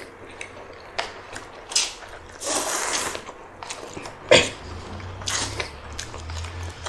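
Close-miked eating sounds: chewing and handling food, with scattered small clicks, a breathy rush of noise near the middle and one sharp knock a little past halfway.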